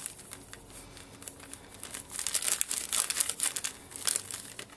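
Small plastic zip-top bag crinkling as it is squeezed and kneaded by hand to mix the dry pigment powder and gum arabic inside. Lighter at first, then dense crinkling from about halfway through.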